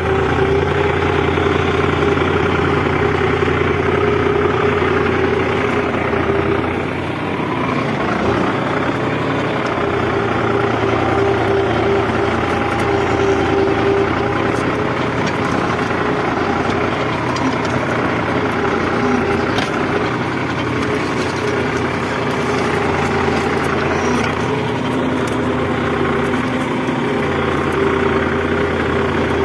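New Holland 55-56 tractor's diesel engine running steadily while pulling a plough, with a brief slight dip in level about seven seconds in.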